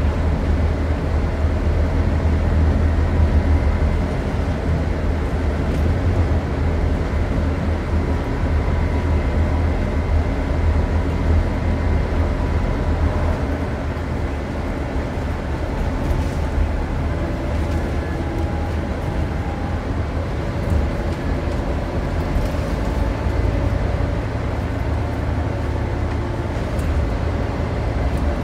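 Scania N230UD double-decker bus heard from inside the passenger saloon: the steady low drone of its five-cylinder diesel engine with running noise and a few light rattles. The drone eases off about halfway through and builds again near the end.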